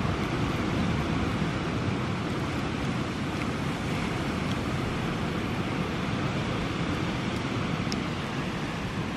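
Steady rushing outdoor noise of wind on the microphone and surf, with no distinct events.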